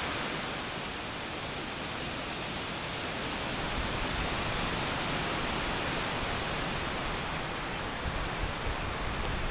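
Steady rushing roar of a wide waterfall, about 25 to 35 feet tall, pouring over a ledge.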